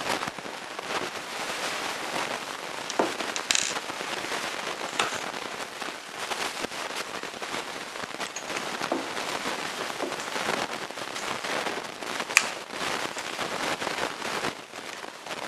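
Handling noise from a Henry Big Boy .44 Magnum lever-action rifle being worked close to the microphone: a steady crackling hiss with scattered small clicks, and two sharper clicks, one about three and a half seconds in and one near twelve seconds.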